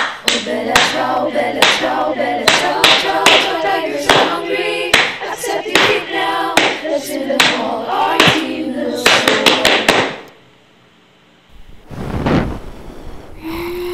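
A cheer squad chanting together in rhythm over steady hand claps, about two claps a second. Just after ten seconds in the chant and claps stop, followed by a short swell of noise and then a steady low tone near the end.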